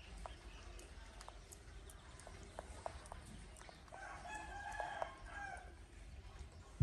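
A single drawn-out animal call, about a second and a half long, starting about four seconds in, amid faint scattered clicks.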